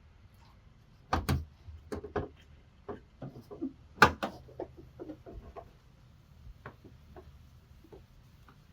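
Cleaning a car headlight with window cleaner: irregular short clicks and knocks of handling, two close together about a second in and the loudest about four seconds in, then softer scattered clicks.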